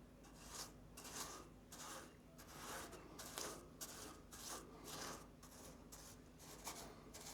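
Faint, repeated swishing strokes, about two a second, of rust converter being brushed onto a bare steel body panel.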